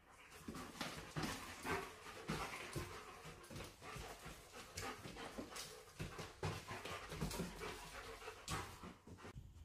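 Young German Shepherd dog panting quickly and unevenly, with the odd short whine, excited at the prospect of a walk.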